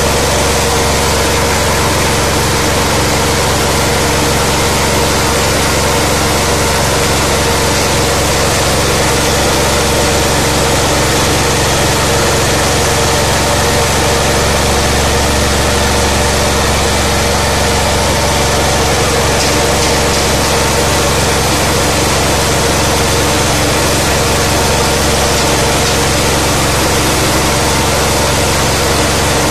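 LPG-converted 17 hp GX420-type single-cylinder engine running at a steady speed under load, driving a small rice huller, with the hiss of hulled rice grain pouring through the machine.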